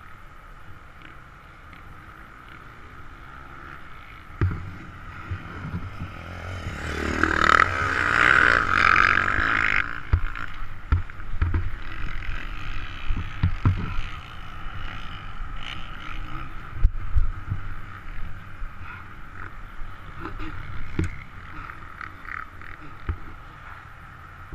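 Dirt bike engine running, revving up hard about six to ten seconds in as the bike pulls away. It then rides on rough track, with repeated knocks and thumps, one of them loud about seventeen seconds in.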